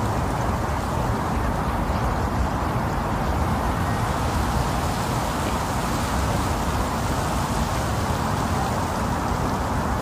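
Wind blowing steadily: an even, unbroken rush with a low rumble underneath, neither gusting up nor dying away.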